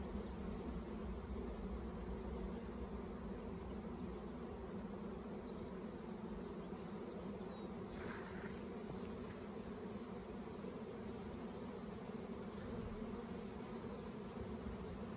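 Honeybee swarm in flight, the massed wingbeats of thousands of bees making a steady, even hum: a swarm on the move, settling into a new home in a bait hive.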